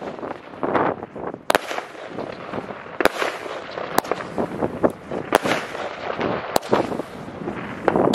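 A Pyroco 'Mumie' 16-shot compact firework cake firing in sequence. Sharp bangs come about every one to one and a half seconds, with hissing and crackling between them as the shots rise and burst into glittering stars.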